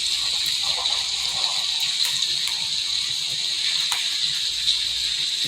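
Steady hiss of a recorded rain-sound track, with a few faint clicks.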